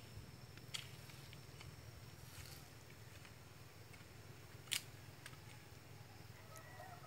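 Near silence: a faint low hum with a few soft clicks, one about a second in and a sharper one about five seconds in.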